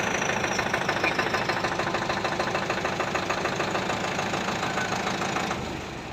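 Engine running steadily with a fast, even knocking beat, getting quieter about five and a half seconds in.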